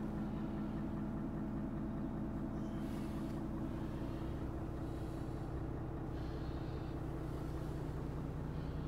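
Renault T460 truck's 11-litre six-cylinder diesel engine idling steadily, heard from inside the cab.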